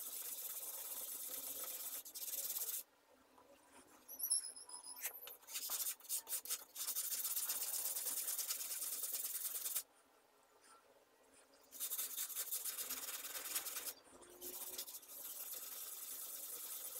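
Steel chisel rubbed back and forth by hand on 400-grit sandpaper, a fast, even rasping scrape. It stops for a second or two three times, about three, ten and fourteen seconds in.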